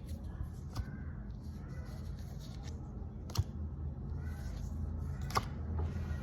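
Pokémon card packs and cards being handled and opened: light rustling with two sharp clicks, about three and five seconds in, over a steady low hum.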